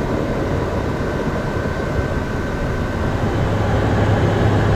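A HondaJet's GE Honda HF120 turbofan engine running, heard from inside the cabin as a steady rushing noise. A low hum grows louder about three seconds in.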